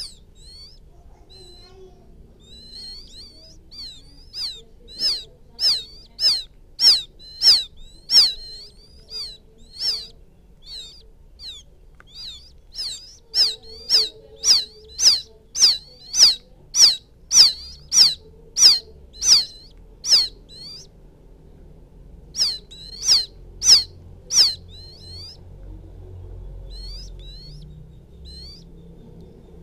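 Quail chick calling for its mother: short, high peeping notes repeated a little under twice a second, in three bouts with pauses between, the call used as a lure for quail.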